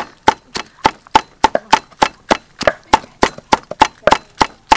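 Heavy cleaver chopping dried red chillies on a round wooden chopping block: a steady run of sharp knocks, about three to four a second.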